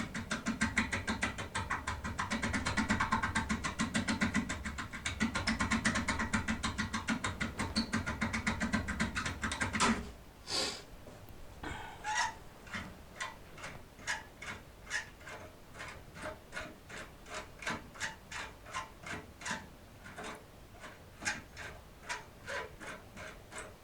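Foil impression lockpick being worked in an MCM cylinder lock: a dense, rapid metallic clicking for about ten seconds, which stops abruptly, followed by separate clicks at about two a second. With two layers of foil, this impressioning takes twice as long.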